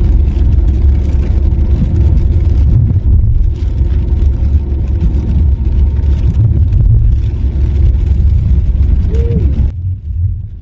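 Car driving on a wet road, heard from inside the cabin: a steady, loud low rumble of engine and tyres, which cuts off suddenly near the end.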